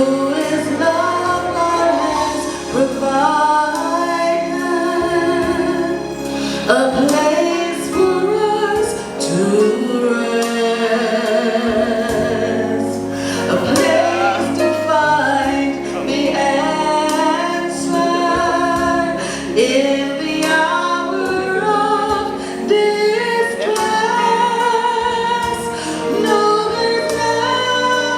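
Singing with musical accompaniment, a woman's voice to the fore, in a gospel style.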